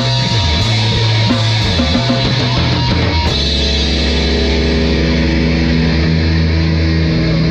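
Rock music with guitar and drums, loud and dense. About three seconds in, the drum hits thin out and the band moves to a long held chord over a steady bass.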